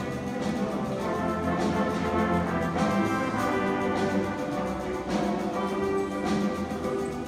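A school band playing live, with sustained brass and wind notes and a drum hit every second or so.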